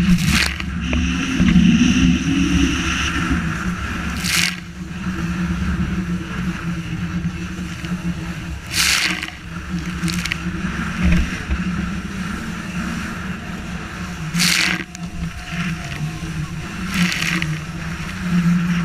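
Yamaha SRV 20 motorboat running steadily through choppy waves in strong wind, its motor humming, with waves splashing against the hull about six times.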